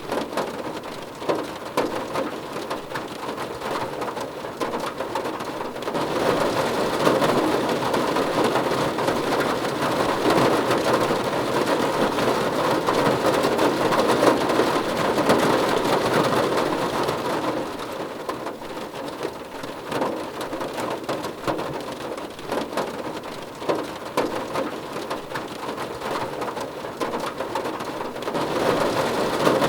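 Rain falling on a car's roof and windows, heard from inside the car: a dense, steady patter of many separate drops. It grows heavier about six seconds in, eases again after about seventeen seconds, and picks up once more near the end.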